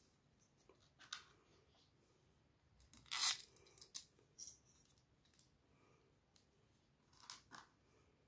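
Faint handling noises as plastic gear wheels and wooden parts are fitted together by hand: a few light clicks and scrapes. The loudest is a short rasping scrape about three seconds in.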